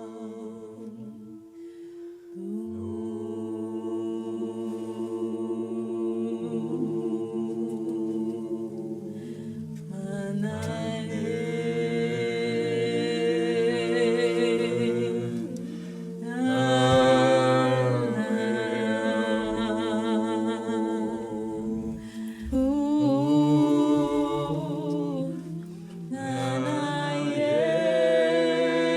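Several voices sing wordless, sustained notes with vibrato in layered harmony over a low held tone, with no instruments. It is a cappella sound-healing toning, and it swells in waves as new voices come in about a third of the way through, again past the middle, and near the end.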